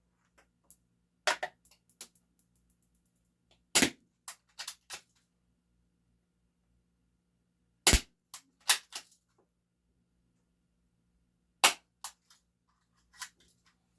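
Game Face M311 full-metal spring-powered airsoft pistol, a 1911 replica, fired four times at intervals of about three to four seconds. Each shot is a sharp snap, followed by a few fainter clicks and taps.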